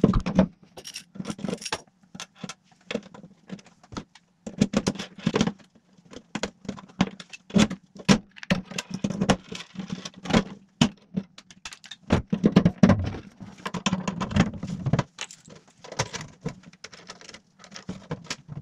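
Hand pop-rivet gun being squeezed to set rivets in a thin aluminium box. An irregular string of sharp metal clicks and clacks, with the sheet aluminium rattling.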